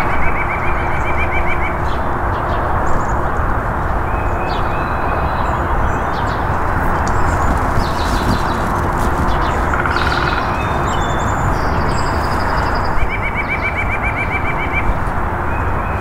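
White-breasted nuthatch singing rapid runs of short, evenly repeated notes, near the start and again near the end, with fainter chirps from other birds. A steady rushing background noise underneath is louder than the birds.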